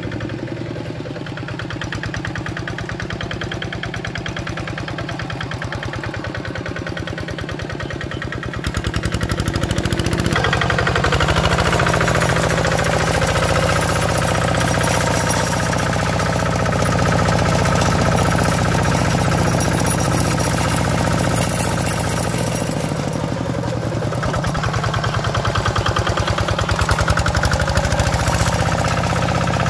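Kubota RD65 single-cylinder diesel engine on a two-wheel hand tractor running steadily under load as its rotary tiller blades churn through wet paddy mud, with a fast, even chugging. It gets louder and closer from about nine seconds in.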